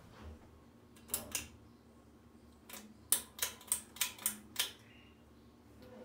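Westinghouse Petite 30-inch ceiling fan running with a low steady hum while its pull-chain switches are clicked: two clicks about a second in, then a run of seven sharp clicks about three a second. The light kit is switched off during the clicks.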